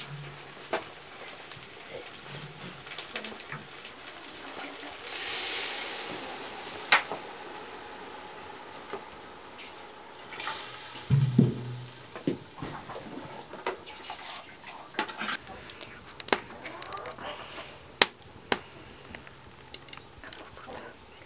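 Water poured from a pot into a large aluminium cooking pot, with scattered clinks and knocks of pots, lids and utensils.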